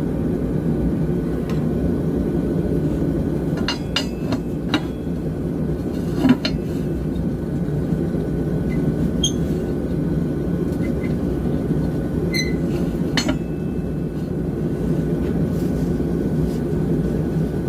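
A few scattered hammer knocks and clinks on a steel bar, about nine over the stretch with short metallic rings and the loudest about six seconds in, as the bent bar is straightened, over a steady low drone.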